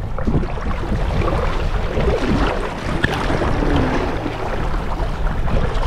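River current rushing and splashing close by, with wind buffeting the microphone in a steady low rumble.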